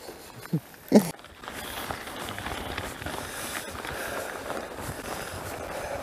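Mountain-bike tyres rolling and crunching over a dirt trail strewn with dry leaves and woodchips, with many small ticks and rattles, steady from about a second in.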